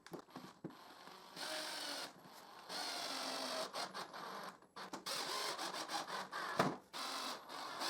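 Power drill driving screws through a thin sheet into a plywood strip, running in several short bursts of a second or so with brief pauses between.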